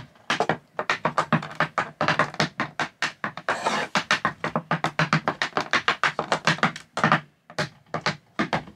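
Tap shoes dancing on a wooden board: rapid, rhythmic runs of metal taps clicking and striking the wood, with a brief pause about seven and a half seconds in. The old shoes are freshly rebuilt, and their tap sound is clear.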